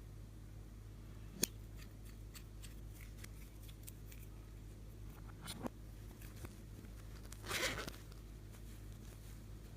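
Close handling sounds while making slime: a sharp snip about a second and a half in, another about six seconds in, and a short rustle near the end, over a steady low hum.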